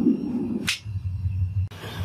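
Homemade gas-bottle furnace roaring, then its steel lid comes down with a single sharp clack about two-thirds of a second in; the roar drops away to a low hum, which cuts off abruptly near the end.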